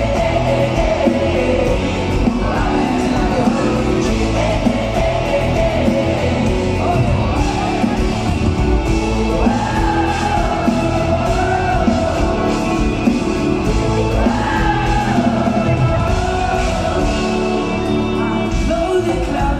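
Live pop-rock band performing a song: a singer's vocal over electric and acoustic guitars, bass and drums, heard loud and steady from among the audience in a large hall.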